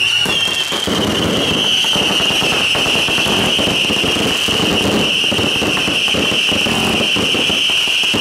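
Ground fountain fireworks spraying sparks: a steady high-pitched whistle over a dense, continuous crackle of small pops.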